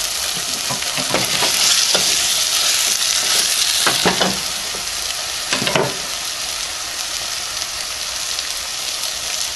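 Potato and chickpea curry sizzling steadily in a steel pot. A spoon stirring in the garnish scrapes and knocks against the pot about a second in, around four seconds and again near six seconds.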